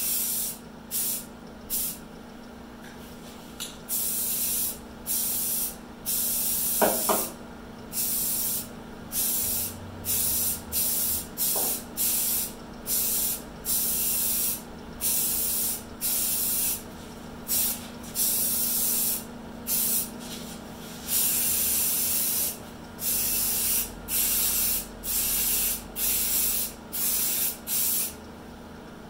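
Primer being sprayed onto fiberglass body panels, a hiss that starts and stops in many short and longer bursts, over a steady low hum. A brief sharp knock about seven seconds in.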